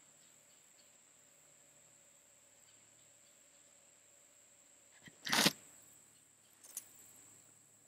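Faint, steady high-pitched insect drone, one unbroken note, outdoors. About five seconds in, a brief loud rustling scrape, followed by a small click a little over a second later.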